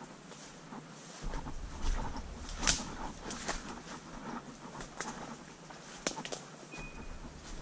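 Footsteps pushing through dry leaves and brush, with irregular twig snaps and branches swishing past, under a low rumble on the microphone; a short high beep sounds near the end.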